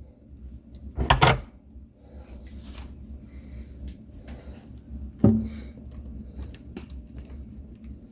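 Hand tools at work on electrical wire being cut and stripped: a quick cluster of sharp clicks about a second in, and a single sharp knock with a short low ring about five seconds in.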